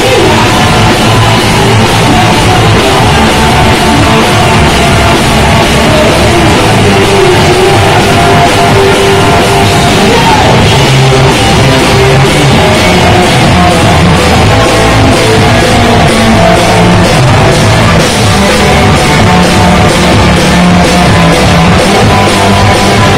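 A live rock band playing loud and without a break: electric guitars, electric bass and a drum kit.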